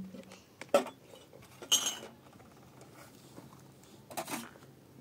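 Dishes and utensils clinking and knocking: three separate knocks, the middle one ringing briefly.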